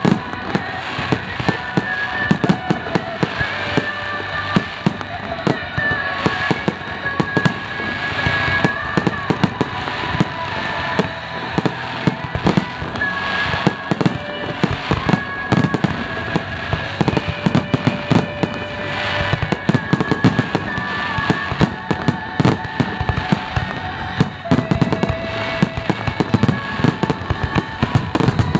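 Fireworks going off in a dense, continuous string of bangs and crackles, over music with long held notes.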